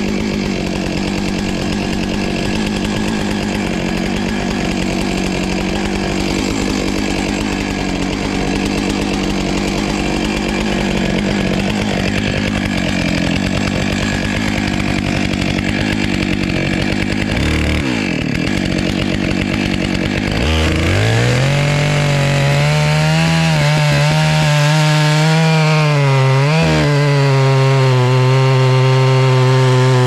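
Stihl chainsaw running at high revs, cutting into a massive maple log. About twenty seconds in, the engine note drops and settles into a steadier, lower pitch that dips once more briefly near the end.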